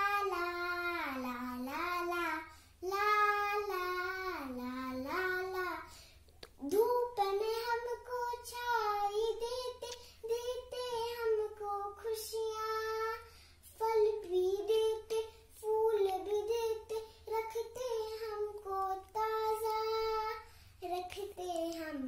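A young girl singing a Hindi children's poem about planting trees, unaccompanied, in long held and gliding notes, with short breath pauses between lines.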